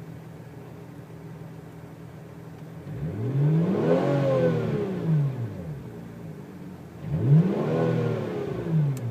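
2004 Hyundai Tiburon V6 engine idling, then revved up and let back down twice, about three and about seven seconds in, its pitch rising and falling each time. The owner records it for a whine whose cause he cannot identify.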